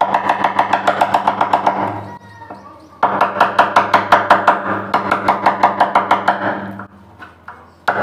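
Rapid, even taps of a hammer or mallet driving a wood chisel, cutting the recess for a door lock's faceplate into the edge of a wooden door. The taps come in two quick runs with a short pause about two seconds in, and die away near the end.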